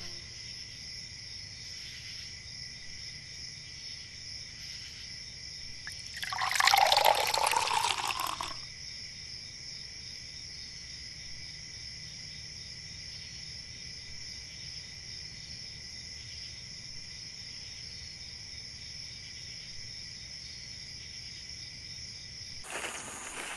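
Night insects chirring steadily. About six seconds in comes a short gush of liquid being poured, lasting about two seconds.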